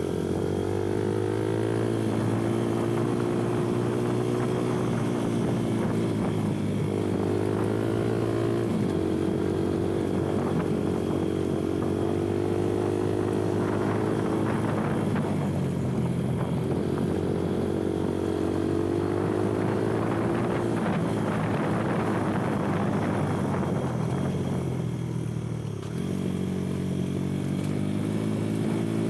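Kuba Black Cat dirt bike's engine running steadily under way, its pitch rising and falling gently with the throttle. Near the end the engine note drops briefly, then picks up again.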